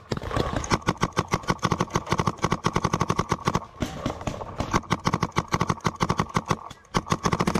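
Adrenalin Featherlite Angel LCD electropneumatic paintball marker firing in rapid strings, about ten shots a second, with short breaks about four seconds in and just before the end.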